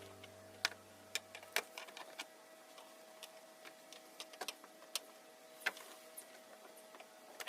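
The last notes of background guitar music dying away, then a quiet stretch with scattered light clicks and ticks over a faint steady hum.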